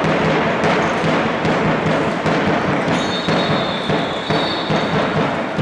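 Floorball match sounds in a sports hall: knocks of sticks and ball and players' footsteps on the court, echoing in the hall. A high, held tone sounds for about two seconds midway.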